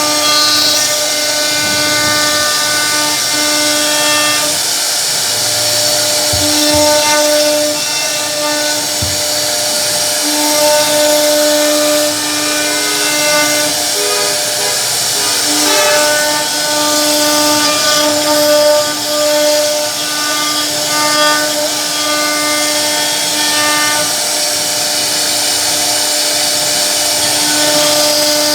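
CNC router spindle cutting wood: a steady whine at one fixed pitch over the noise of the bit chipping the wood, swelling and fading as the cut goes on.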